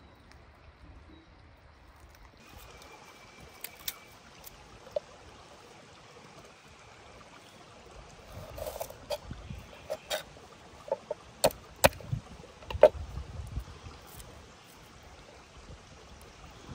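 Irregular sharp clicks and knocks, a dozen or so, most of them in a busy stretch past the middle, over a faint steady hiss.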